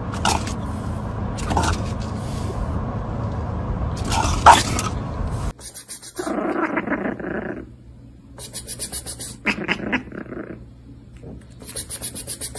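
Steady road noise inside a moving car, with a few short sounds from a French bulldog, the loudest about four and a half seconds in. Then, after a cut, a sleeping long-haired tabby cat snoring in slow, rattling breaths about every three seconds.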